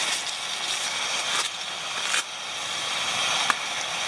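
Gas canister stove burner hissing steadily under a pot of cooking pasta, with a few light clicks, the sharpest about three and a half seconds in.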